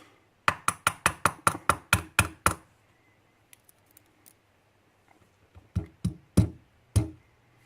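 Sharp metallic knocks, about ten in quick succession and then four more spaced out near the end: a lock being tapped against a hard surface to shake a stuck pin stack and spring out of its chamber while the lock is gutted.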